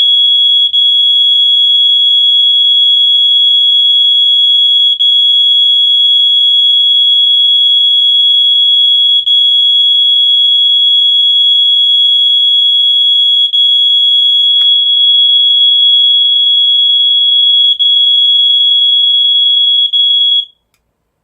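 Whelen strobe-alarm's 3100 Hz piezo sounder in test mode, sounding one continuous, very loud, high-pitched tone with a brief dip about every four seconds. A single faint click comes about 15 seconds in, and the tone cuts off suddenly near the end.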